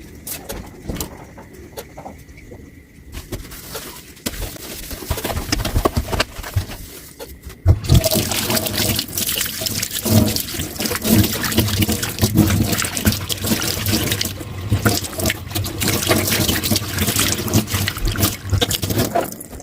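Kitchen tap water running into a sink, turned on about eight seconds in, with a brief dip in the flow partway through. Before it, quieter scattered knocks and clinks of handling at the sink.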